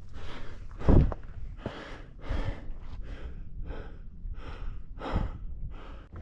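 A person breathing hard in quick, noisy puffs while climbing steeply on foot, with a loud thump about a second in.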